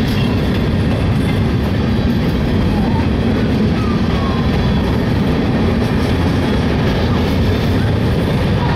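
Freight train of gondola and covered hopper cars rolling past at close range: a steady, loud noise of steel wheels on the rails.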